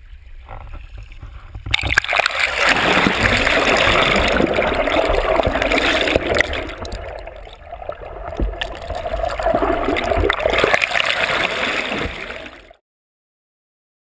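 Water rushing and gurgling around a camera held low at the side of a rowed boat, partly underwater. The sound comes in loudly about two seconds in and cuts off suddenly near the end.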